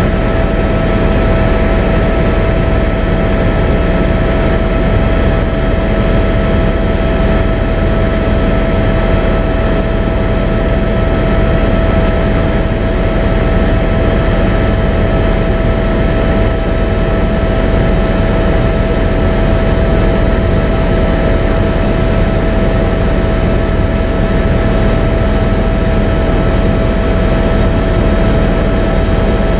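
Steady aircraft cabin noise in flight: an unbroken engine drone and rushing air with a constant whine over it.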